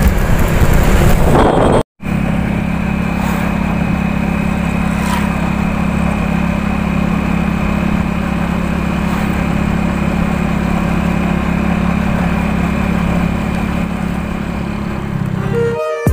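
Motorcycle engine running at a steady speed, heard from the pillion seat of the moving bike. The sound drops out briefly about two seconds in.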